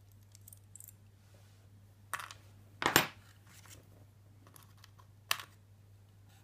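Small clicks and taps from handling the parts of a disassembled pin-tumbler lock cylinder. There are a few faint ticks, then three sharper clicks at about two, three and five seconds in, the middle one the loudest.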